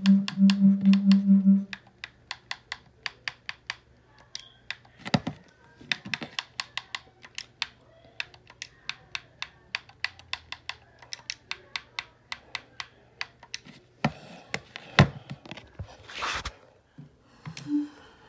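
A pulsing low tone for the first second or so, then a long run of sharp clicks at an uneven pace of a few a second, like typing on a keyboard. Near the end come a few louder knocks and rustles.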